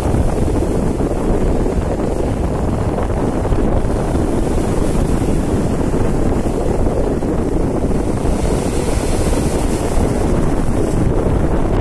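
Strong wind buffeting the microphone in a steady low rumble, over waves washing and breaking against shoreline rocks. One wave crashes and hisses more loudly over the rocks about eight seconds in.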